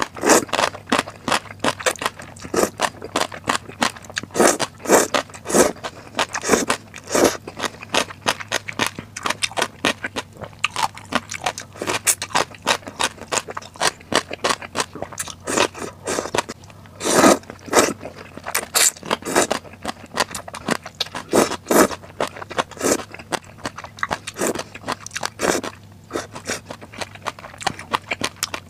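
Close-up eating sounds of spicy snail noodles (luosifen): noodles slurped up in quick bursts and crisp crunching as the pickled tribute vegetable (gongcai) is chewed, a dense run of short, sharp slurps and crunches.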